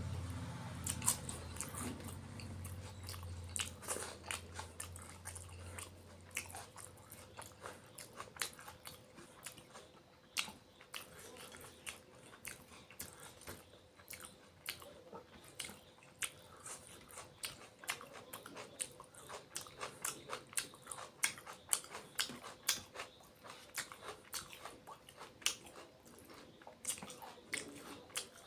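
A person eating fish curry and rice close to the microphone: chewing and biting, with frequent sharp wet mouth clicks and smacks. A low hum underneath fades out about eight seconds in.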